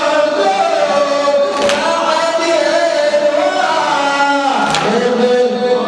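Shia latmiya mourning chant: a congregation of men singing a slow, drawn-out lament together. Two sharp slaps about three seconds apart keep time, the chest-beating (latm) of the mourners.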